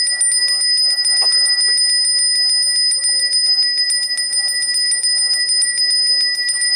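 Balinese priest's hand bell (genta) rung rapidly and without pause, a steady high ringing.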